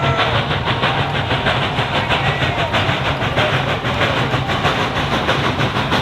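Train running on the rails, a steady loud rumble with a fast, continuous clatter.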